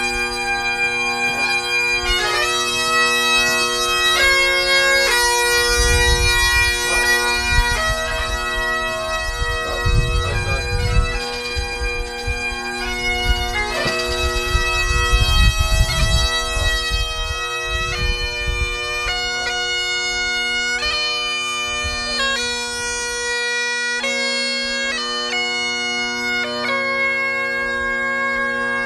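Great Highland bagpipe playing a slow melody of held notes over its steady drones.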